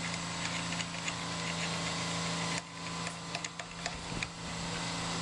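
A steady machine hum, like a fan or air conditioner. It dips briefly midway, and a few light metallic clicks sound about three to four seconds in as a rotor puller is threaded by hand onto a motorcycle alternator rotor.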